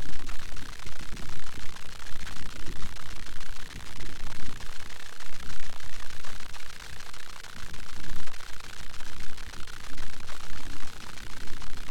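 Wind buffeting an outdoor camera's microphone: a gusty low rumble that swells and drops unevenly over a steady hiss.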